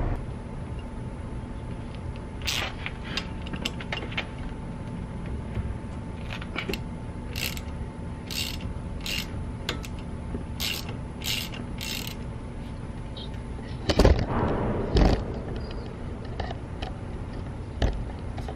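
Socket ratchet clicking in short bursts as it is swung back and forth on the brake caliper bolts of a 1986 Cadillac Eldorado, with a couple of louder metal clunks about two-thirds of the way through.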